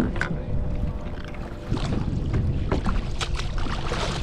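Wind buffeting the microphone and sea water slapping against a kayak, with several short, sharp knocks and splashes as a fish is brought alongside and lifted out.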